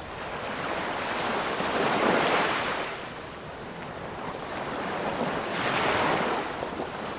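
Ocean waves breaking on a shore, with steady surf wash that swells twice as waves come in, about two seconds in and again near the end.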